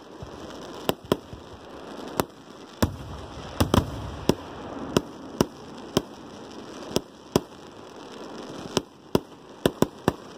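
Aerial fireworks going off: a string of sharp bangs at uneven intervals, roughly two a second, with a deeper rumbling burst about four seconds in.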